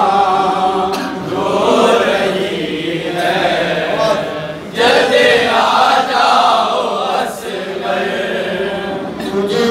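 Men chanting a noha, a Shia mourning lament: a lead male reciter sings into a microphone and a group of men chant along with him.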